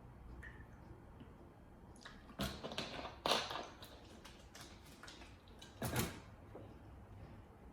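Tableware being handled during a meal: three short knocks and clicks, about a second apart and then a few seconds later.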